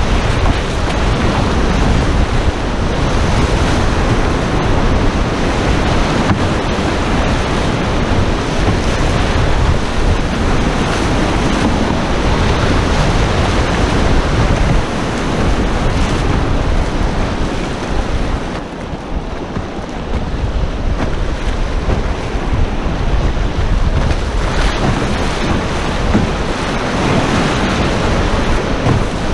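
River rapids rushing loudly around an open canoe's hull, with wind noise on the microphone. The roar eases a little for a couple of seconds past the middle.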